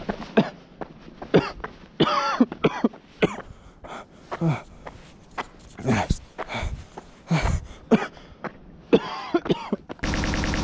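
A person coughing and gasping in short, irregular fits. Near the end it cuts abruptly to a steady burst of loud digital static.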